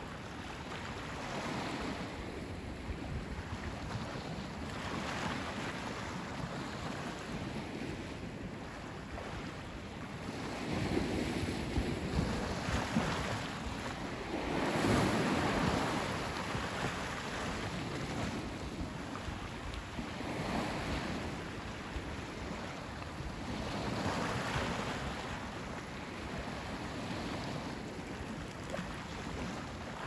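Ocean waves breaking and washing up on the beach, swelling and fading every few seconds, with the biggest surges about halfway through.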